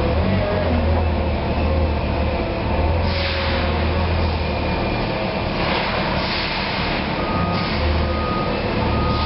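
Bendi articulated narrow-aisle forklift running as it works: a steady low drone with a hiss over it, the drone dropping away about halfway through and coming back near the end, with a thin whistle in the last couple of seconds.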